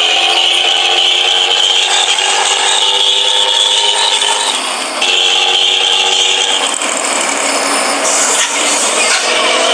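Motorcycle with a racing exhaust running hard, its buzzy note climbing slowly in pitch. The pitch drops sharply about five seconds in, climbs again, and turns rougher after about seven seconds.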